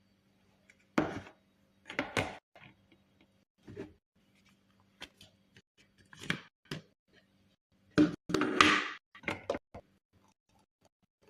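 Kitchenware being handled: a series of separate knocks and clatters, with a longer rattling clatter about three-quarters of the way through.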